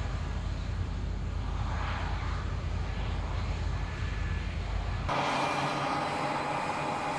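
Heavy farm machinery's diesel engine running steadily with a deep rumble. About five seconds in, the sound changes abruptly to a brighter, higher-pitched machine running.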